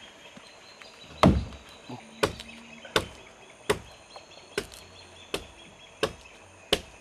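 Hand adze blows chipping wood from a log being shaped into a dugout canoe: one heavy chop about a second in, then a steady run of sharp strikes about every three-quarters of a second.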